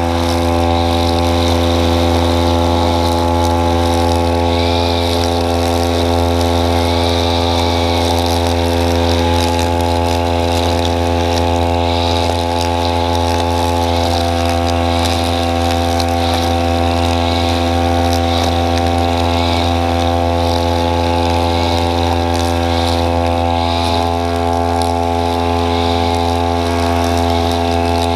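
String trimmer (grass cutter) running at a steady high speed as its line head trims grass, a constant motor drone with no change in pitch.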